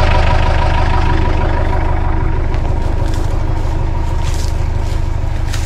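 Vehicle engine running steadily under way, with rattling and a few sharp clicks over the road noise.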